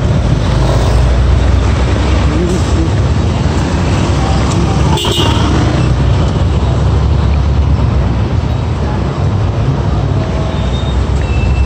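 Motor vehicle traffic: car engines running close by, a steady low rumble, with a short click about five seconds in.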